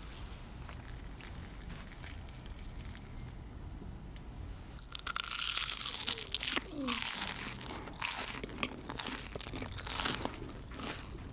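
Crispy crumb-coated crust of a fried cheese potato stick crunching as it is broken or bitten open. There are a few faint handling clicks at first, then a loud burst of crackly crunches about halfway in, with smaller crunches after.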